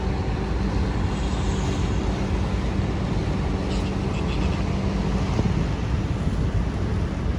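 Ferry engine running steadily, a constant low hum of engine tones over a broad rushing noise.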